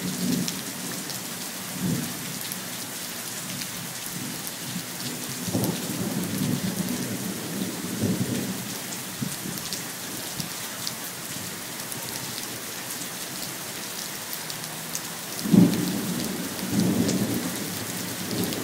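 Steady heavy rain falling, with many fine drop ticks, and thunder rumbling several times. The loudest roll of thunder comes about fifteen seconds in.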